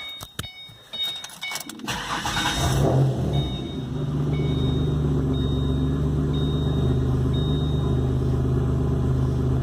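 A few clicks, then a turbocharged 4.0 V6 Mustang engine starts about two seconds in, flares up briefly and settles into a steady idle. The vacuum leak has just been fixed by replacing a cracked hose, and the engine is pulling about 18 inches of vacuum at idle.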